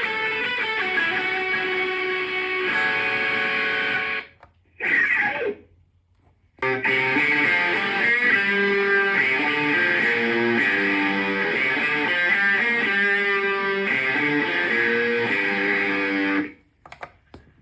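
Electric guitar played through a Zoom G1X Four multi-effects pedal's effects patches: held lead notes with a wavering pitch, a break about four seconds in, then a run of notes that stops shortly before the end.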